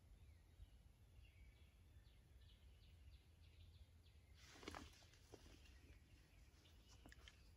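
Near silence with faint, distant songbird chirps and a low hum of background noise. About two-thirds of the way through comes one brief soft noise.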